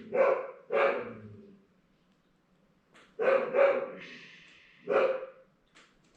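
A dog barking about five times: two barks at the start, two more a little after three seconds in, and a single bark near the end.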